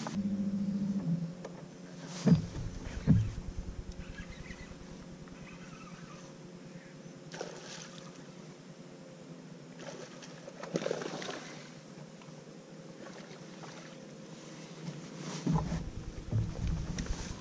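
Steady hum of a bass boat's motor, with two sharp knocks about two and three seconds in and a stretch of splashing and handling noise near the end as a bass is landed.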